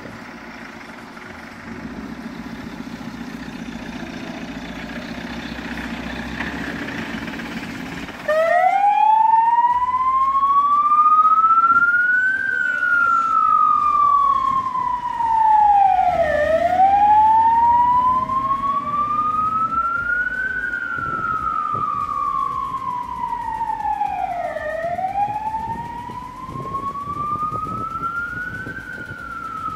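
Iveco Daily light fire engine running as it pulls out, then about eight seconds in its siren starts a slow wail, rising for about four seconds and falling for about four, over and over.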